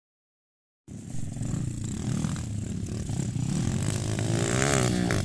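Dirt bike engine running, starting about a second in, its pitch rising and falling as it revs about four seconds in.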